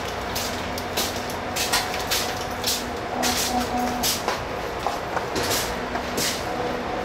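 Repair work inside a train carriage: irregular short hissy bursts over a steady background noise.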